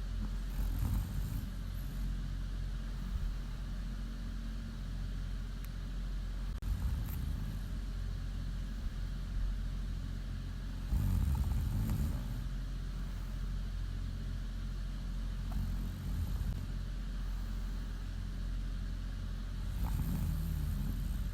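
A woman snoring in her sleep: a low snore about every four to five seconds, five in all, over a steady low hum.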